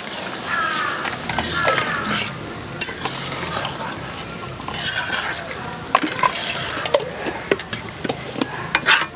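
Metal spatula stirring curry in a metal pot, scraping and clinking against the pot wall over a sizzling gravy. Water is poured in at the very start.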